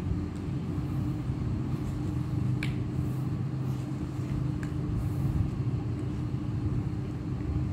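Steady low background hum with a faint constant tone, broken by two soft clicks, the first a little under three seconds in and the second about two seconds later.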